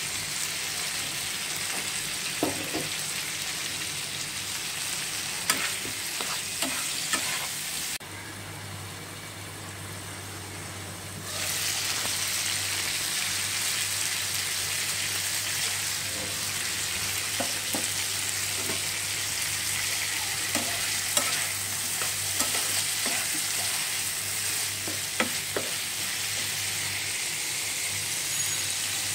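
Chicken and potato pieces sizzling in hot oil in a frying pan, with a metal spatula scraping and tapping against the pan now and then. The sizzle drops away about eight seconds in and comes back about three seconds later.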